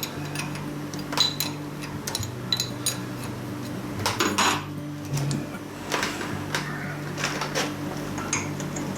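A metal lathe's motor hums steadily, shifting in pitch about two seconds in, while metal tools and parts clink and tap against each other and the machine.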